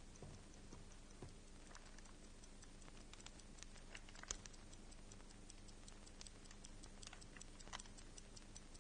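Near silence: faint room tone with steady, rapid, evenly spaced ticking and a few soft clicks.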